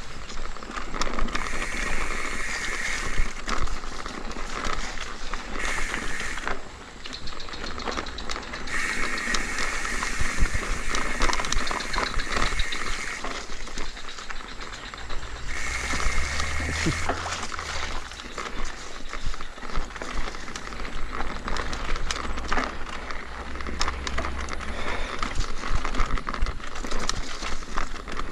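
Mountain bike being ridden over a rough dirt track: frame and parts rattle with frequent clicks and knocks, over tyre noise and wind rumbling on the microphone. A high buzz comes and goes several times in stretches of a few seconds.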